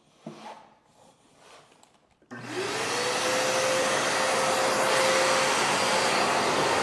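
A few light knocks, then about two seconds in a shop vac is switched on: its motor spins up with a rising whine and then runs steadily with a loud rush of air.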